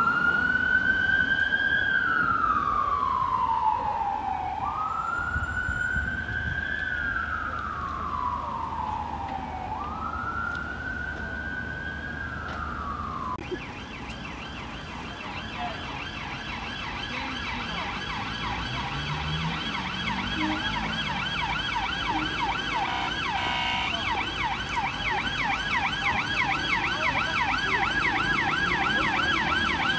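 Ambulance siren on a slow wail, three long rise-and-fall cycles. About 13 seconds in it gives way abruptly to a police car siren on a fast yelp, several sweeps a second, growing louder as the car approaches.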